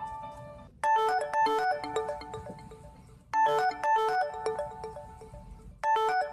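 LG K7 smartphone playing a ringtone: a short bright chiming melody that loops about every two and a half seconds. A previous tone fades out first, and the new melody starts about a second in.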